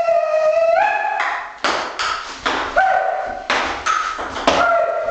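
Ping pong ball clicking sharply off paddle and table several times, with a voice holding long high notes that step in pitch.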